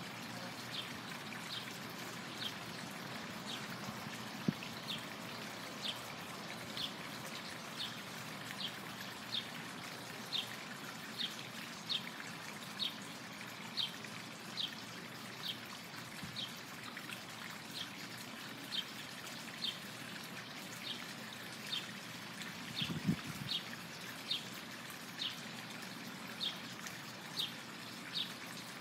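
Steady trickle of water with a bird repeating a short high chirp a little more than once a second over it. There is a soft low thump about four-fifths of the way through.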